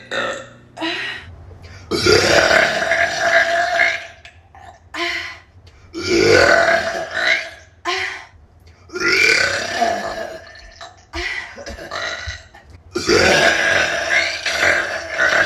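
A woman burping loudly: four long, drawn-out burps about three to four seconds apart, with short, fainter sounds between them.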